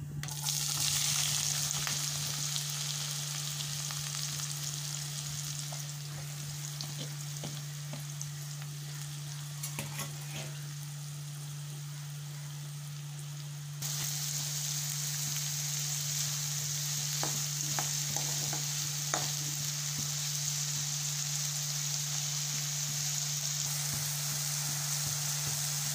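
Chopped onions frying in hot oil in a nonstick kadai: a loud sizzle as they go in, easing to a steady sizzle that grows louder again about halfway through, with a few sharp clicks. A steady low hum runs underneath.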